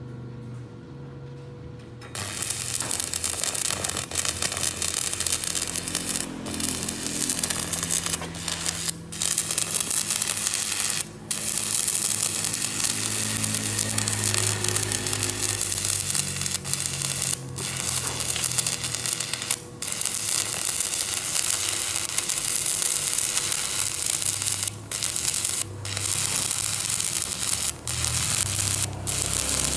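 Stick (shielded metal arc) welding on steel plate: the electrode's arc crackles and sizzles steadily. It strikes about two seconds in and drops out briefly now and then.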